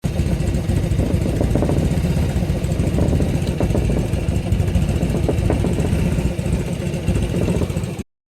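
Small engine running steadily with a dense low rumble that cuts off abruptly about eight seconds in.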